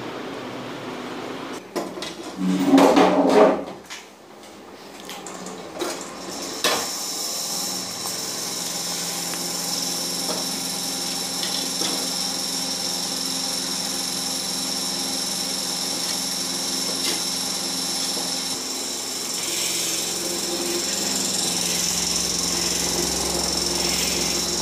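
A loud rough noise lasting about a second and a half, about two seconds in, then a small electric motor running steadily: a hum with a high whine.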